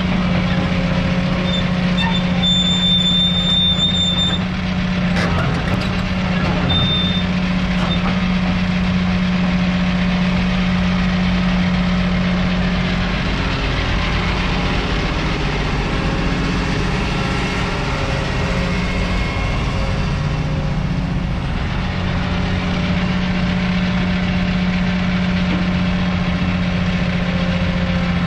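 Volvo EC290BLC hydraulic excavator's diesel engine running steadily as the boom, stick and bucket are worked, its note wavering under hydraulic load through the middle. A brief high beep sounds about three seconds in.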